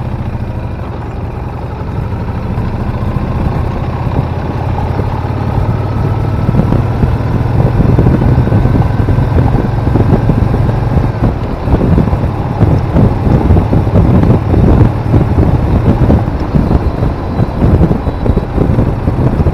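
A motorcycle engine running under way, its pitch climbing slowly as it gathers speed over the first ten seconds. In the second half, ragged wind buffeting on the microphone grows over the engine.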